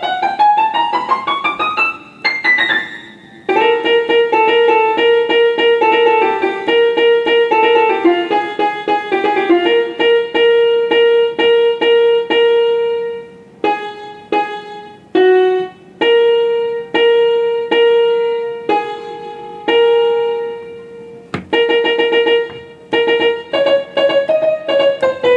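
Roland XPS-10 keyboard played with a piano sound: a fast run up the keys over the first two seconds, then quickly repeated notes and short chords. This is a play test of the keys after the inside was cleaned of dust and carbon to fix keys that would not sound.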